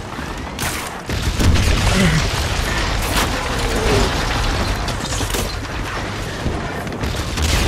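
Film battle soundscape: a constant low rumble of explosions and gunfire, broken by several sharp shots or blasts, about half a second in, around three seconds, around five seconds and at the very end, with distant shouting.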